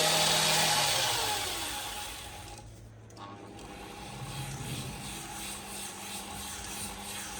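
Background music dying away over the first two to three seconds, leaving only a faint hiss.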